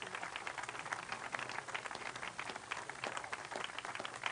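Crowd clapping in irregular scattered claps, with faint voices murmuring underneath.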